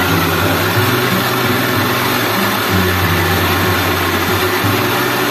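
Small belt-driven rice milling machine running steadily while paddy rice feeds down from its hopper: a loud, even mechanical noise over a low hum.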